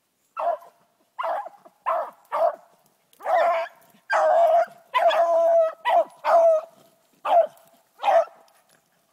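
Hunting dog barking and baying: about eleven loud, clear calls on a steady pitch, most short, with two drawn out longer about halfway through.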